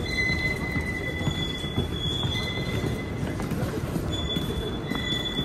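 Montreal metro Azur train at the platform: high, thin whining tones that come and go over a steady low rumble.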